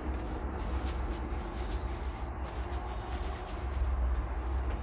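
Steady low machine hum, with a few faint light clicks and rubs.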